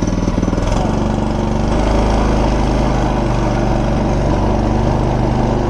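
A go-kart's small engine running as the kart is driven. It picks up revs a little under a second in, then runs steadily.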